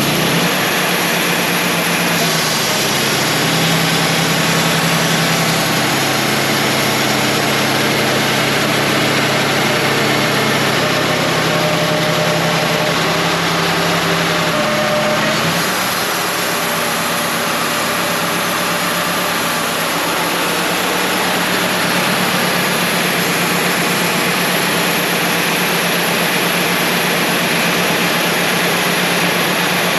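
Wood-Mizer LT35 portable bandsaw mill running steadily while sawing a black oak log: a loud, even engine and blade noise whose pitch shifts about two seconds in and again about halfway through.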